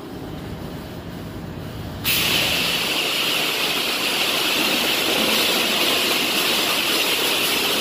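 High-pressure truck-wash wand spraying water: the spray starts abruptly about two seconds in as a loud, steady hiss, over a low rumble that comes before it.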